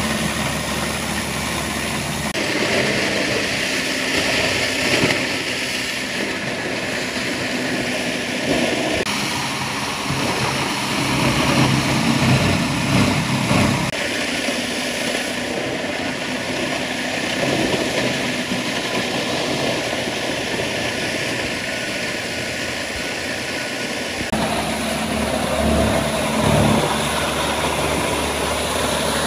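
Plastic shredder (granulator) running, a steady machine drone mixed with the noise of plastic being ground up. The sound changes abruptly several times.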